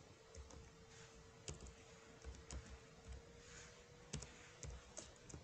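Faint computer keyboard keystrokes, a few scattered clicks as a short word is typed, over a faint steady hum.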